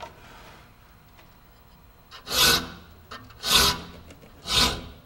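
A hand file rasping across the steel teeth of a 7-points-per-inch handsaw in a vise, heavily reshaping them. It makes three separate strokes roughly a second apart, starting about two seconds in.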